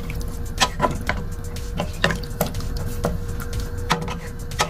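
Wooden spoon stirring chicken pieces in broth in a stainless steel pot: the liquid sloshes, and the spoon knocks sharply against the pot several times, over a steady low hum.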